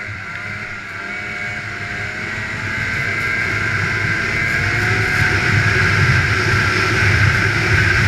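Polaris snowmobile engine running at speed, its whine and rumble growing steadily louder.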